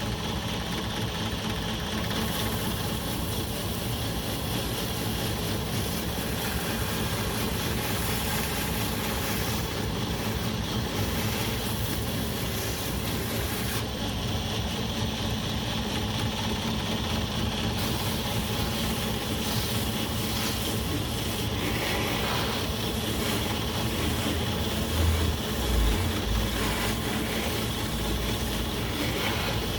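Belt grinder running with a medium abrasive belt while an old knife is ground against it to take out rust pits; the high grinding hiss brightens and fades as the work is pressed on and eased off. A few low thumps come near the end.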